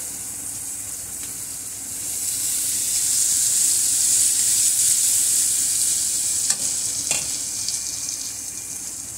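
Sliced bell peppers and green onions sizzling in oil in a skillet as they are stirred. The sizzle swells about two seconds in and then eases, with two light clicks a little over halfway through.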